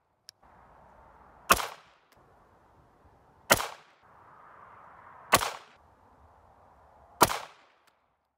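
Four single shots from a 9mm Luger semi-automatic pistol fired at a slow, even pace about two seconds apart, each crack followed by a brief echo.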